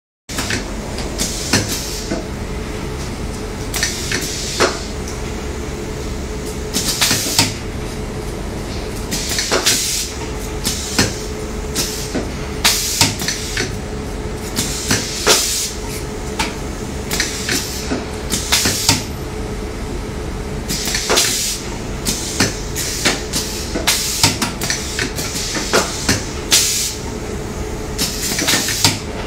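Silicone tube bonding machine running with a steady hum, broken every second or two by short bursts of hiss and sharp clicks.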